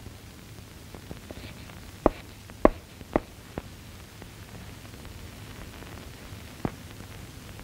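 Steady hiss from an old film soundtrack, with a few sharp knocks: three close together about two to three seconds in, a fainter one just after, and one more near the end.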